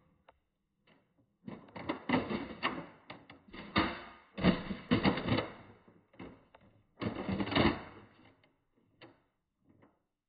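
Plastic clicks and clatter of a Nerf blaster being reloaded: the magazine and mechanism are handled in several bursts of rattling knocks.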